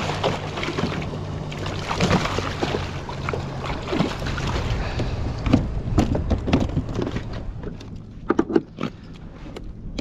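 Small jack crevalle thrashing and splashing in the water beside a plastic kayak, then flopping and knocking on the kayak's deck after it is swung aboard. There are many sharp knocks, the last few strong ones coming late.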